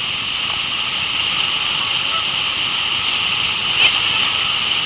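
Steady rush of whitewater on a river running near its peak flow.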